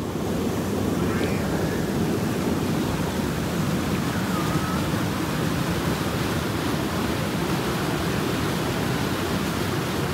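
Fast-flowing stream: a steady, unbroken rush of water.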